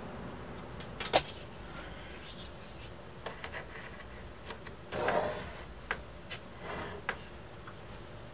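Workbench handling sounds: a sharp knock about a second in, scattered light clicks and taps, and a short rubbing scrape about five seconds in, with a fainter one soon after.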